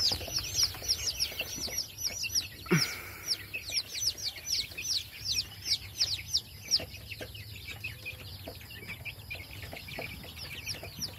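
A brood of young chicks peeping, many quick high peeps that each fall in pitch, overlapping thickly in the first half and thinning out later. One lower call sweeps down in pitch about three seconds in.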